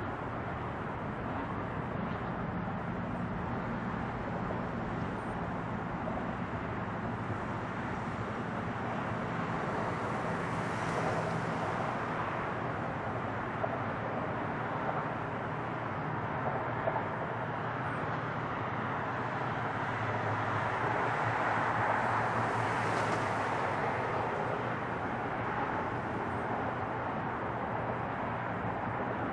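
Boeing 747 jet climbing away after takeoff: a steady, distant rumble of four-engine jet noise that swells slightly about two-thirds of the way through.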